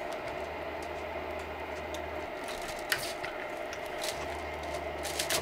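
Anycubic i3 Mega 3D printer running idle with a steady hum, plus a lower hum that starts and stops twice. Light clicks and handling noises come from PLA filament being fed by hand into its Bowden extruder.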